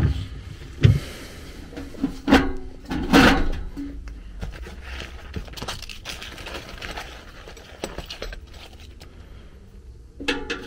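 Handling noise of tools and blower parts: about four knocks in the first three and a half seconds, then several seconds of rustling as a hand rummages in a tool bag.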